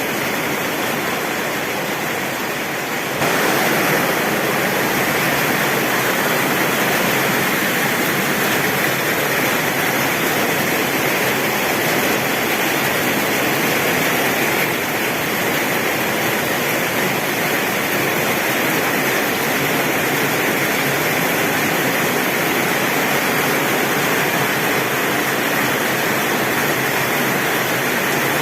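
Heavy rain drumming steadily on a tin roof, a dense even hiss that gets louder about three seconds in.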